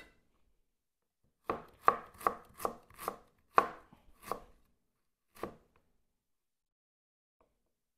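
Chef's knife chopping through ginger onto a wooden cutting board: seven sharp chops about half a second apart, then one more after a short pause.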